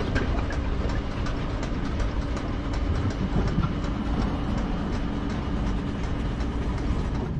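Sound-designed machinery for an animated factory: a steady low mechanical rumble with a regular light clicking, about three clicks a second.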